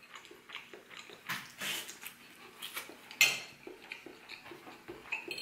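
Metal fork clinking and scraping on a ceramic plate, with chewing and mouth sounds of someone eating rice, in a few irregular short sounds; the loudest, sharpest one comes about three seconds in.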